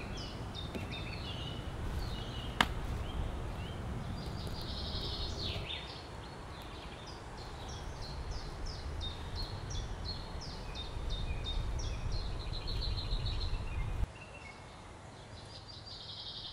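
Wild birds singing: many short, quick chirps and trills repeating throughout, over a steady low rumble of outdoor ambience. A single sharp click comes about two and a half seconds in, and the low rumble cuts off suddenly about two seconds before the end, leaving the birds.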